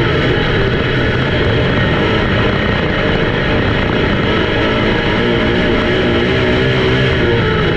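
Race car engines running hard on track, their pitch rising and falling as they accelerate and lift.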